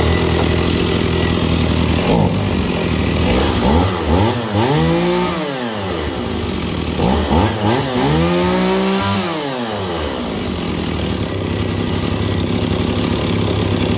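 Shindaiwa 393, a 39cc two-stroke chainsaw, idling. It is revved up and back down twice, about four seconds in and again about eight seconds in, then settles back to idle.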